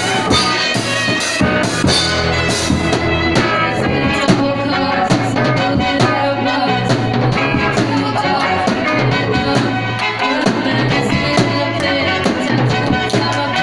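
A band playing live: drum kit, electric guitar and bass guitar keeping a steady beat, with girls singing into microphones.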